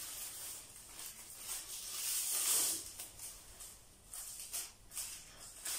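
Strips of black plastic bag rustling and crinkling as they are handled and tied onto a cord, with a longer rustle about two seconds in and several short crinkles near the end.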